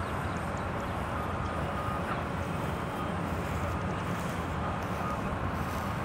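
Steady low rumble of distant road traffic, with a faint thin tone that comes and goes several times.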